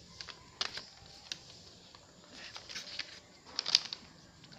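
Handling noise: scattered light clicks and paper rustles from a receipt and a handheld phone, with a louder cluster of clicks nearly four seconds in.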